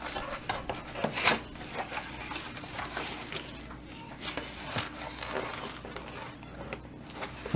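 Cardboard box being opened by hand: packing tape slit and cardboard scraping and rustling, with scattered knocks as the box is lifted and its flap pulled open. The sharpest scrape comes about a second in.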